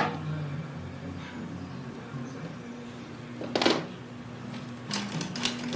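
Light handling sounds of painting tools on a work table: a sharp knock at the start, a short scrape about three and a half seconds in, and a few light clicks near the end, over a faint low hum.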